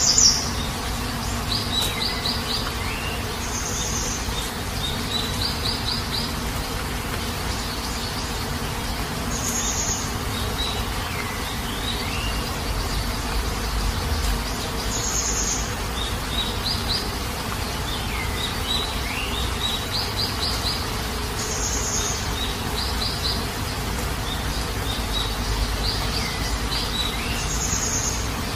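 Steady heavy rain with birds calling over it again and again: short high chirps every few seconds, quick trills, and calls that slide down in pitch. The loudest chirp comes right at the start.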